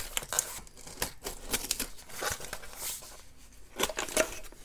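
Hands opening a corrugated cardboard mailer box: irregular scraping, tearing and crinkling of cardboard and paper as the lid is pried up and pulled open.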